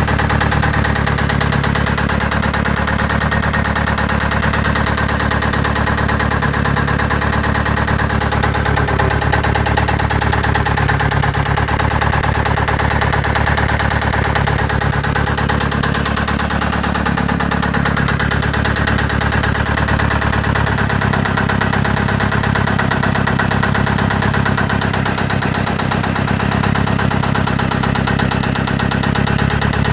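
Mitsubishi 4G63 inline-four engine idling steadily with a rapid, even knock, which the owner places in the fourth cylinder.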